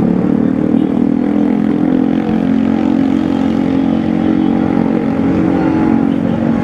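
City road traffic: a motor vehicle engine drones steadily close by over the continuous noise of passing cars and motorcycles.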